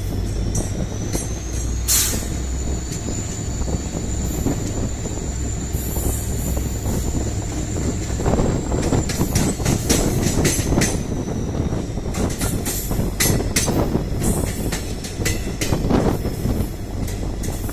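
Passenger train running behind an EMD WDP4D diesel locomotive, its 16-cylinder two-stroke engine giving a steady low hum under a thin high whine. From about eight seconds in, a rapid series of clicks comes from the wheels passing over rail joints.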